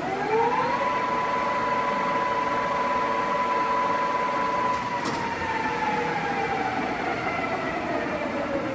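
Standard Modern 18-inch engine lathe's spindle and headstock gearing whining as the spindle spins up to about 1160 RPM, then holding a steady pitch. A click comes about five seconds in, and the whine then slowly falls in pitch as the spindle coasts down.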